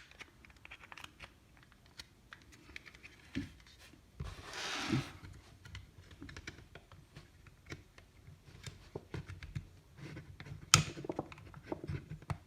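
Small scattered clicks, taps and scrapes of a screwdriver and plastic parts as T8 Torx screws are undone and the backing panel of a BMW iDrive rotary controller is worked loose. A longer scraping sound comes about four and a half seconds in, and a sharper click about eleven seconds in.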